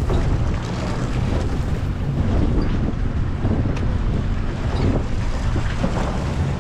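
A sportfishing boat's engine drones steadily, with wind buffeting the microphone and the wash of the sea against the hull.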